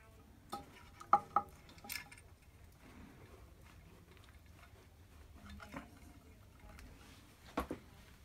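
Light metallic clicks and clinks as wires and crimp terminals are handled inside the metal base housing of an early-1960s Black & Decker bench grinder. A few knocks with a short ring come about a second in, then it goes quiet, and two more knocks come near the end.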